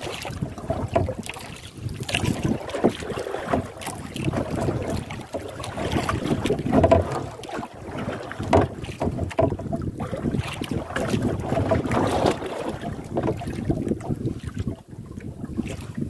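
Wind noise on the microphone over water splashing against the hull of a small outrigger canoe on choppy sea, rising and falling unevenly.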